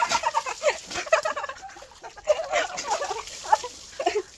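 Rapid, high, cackling cries and laughter from people as a bowl of water is poured over a man's head, with water splashing at the start.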